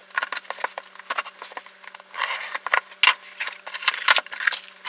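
Cardboard shipping box being cut open with a utility knife and unpacked: packing tape slit, flaps folded back and paper packing rustling, in a quick run of scratches, clicks and crinkles.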